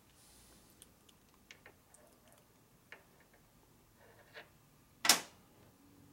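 Small metal parts of a Harley-Davidson four-speed transmission clicking and ticking as they are fitted into the case by hand. There are a few scattered light clicks, then one sharp, louder clack about five seconds in.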